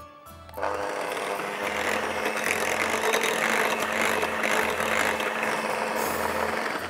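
Electric hand mixer running with its beaters in a glass bowl, whisking whipped cream and beaten egg whites into a cheesecake filling. The motor starts about half a second in, runs steadily, and cuts off just before the end.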